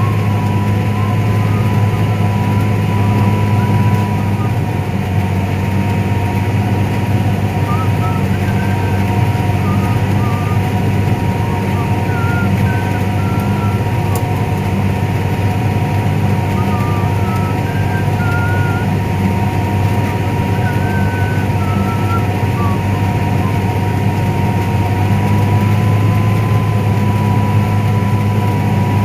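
Tractor engine running steadily under load, heard from inside the cab: a deep drone with a constant high whine over it.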